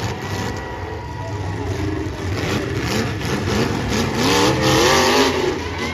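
Demolition derby car engines revving, the pitch swinging up and down, loudest about four to five seconds in.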